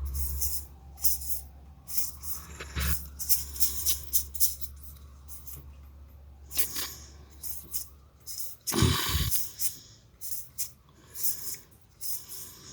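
Trading cards being handled and flipped through by hand: a run of short papery flicks and rustles. There is a low steady hum until about eight seconds in, and a louder bump about nine seconds in.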